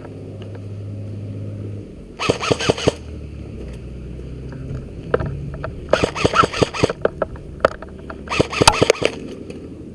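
Airsoft guns firing in three rapid bursts of sharp clicking shots, the last near the end, over a low background hum.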